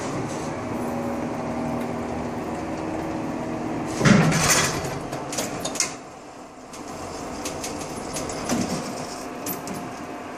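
Elevator machinery running with a steady hum that carries a few steady tones. About four seconds in comes a loud clattering stretch of a couple of seconds, after which the hum goes on more quietly with scattered clicks.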